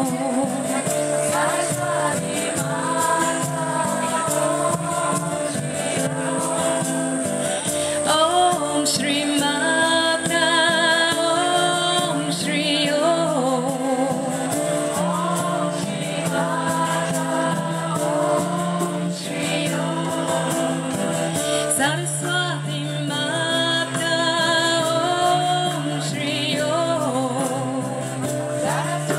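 Live devotional chant music: several voices singing together, with a woman's voice prominent, over acoustic guitar and bowed cello.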